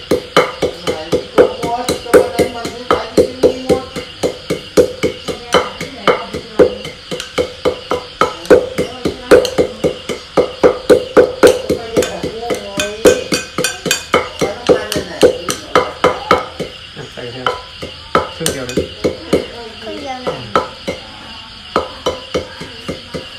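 Wooden pestle pounding garlic and peppercorns in a large clay mortar, steady strokes at about three a second, each a knock with a short ring, grinding them into a fine paste.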